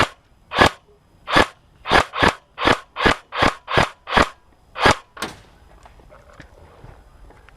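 Airsoft gun fired in single shots, about a dozen sharp cracks in quick irregular succession, stopping a little after five seconds in.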